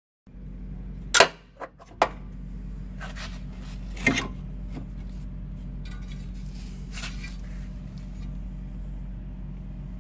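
Steady low hum of a 2017 Ford Fiesta heard from inside the cabin, with a few sharp clicks in the first few seconds, the loudest about a second in and another about four seconds in.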